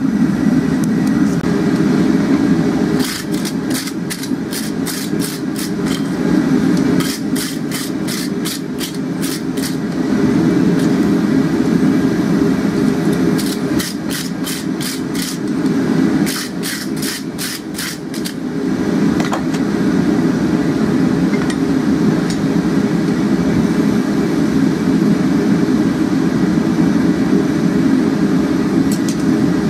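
Steady roar of a gas forge burner. Over it come four bursts of quick, even strokes, about four a second, from a wire brush scrubbing scale off hot steel held in tongs on the anvil.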